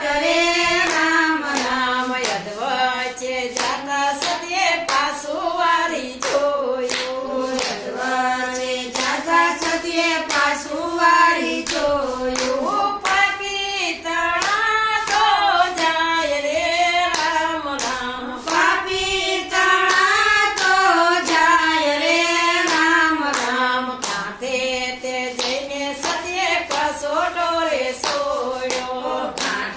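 A group of women singing a Gujarati devotional bhajan in unison, keeping time with hand claps.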